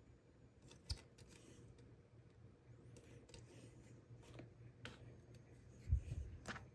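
Light clicks and taps of a hard plastic (PC and acrylic) table lamp being handled, then a dull thump near the end as it is set down on the table, over a faint steady low hum.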